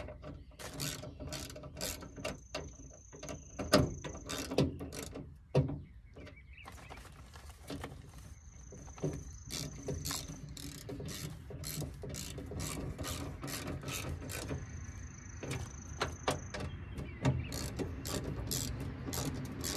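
Hand socket ratchet clicking in bursts as bolts are run down, fastening a replacement window regulator into a Honda Element's steel door, with a few sharper knocks of the tool against the metal.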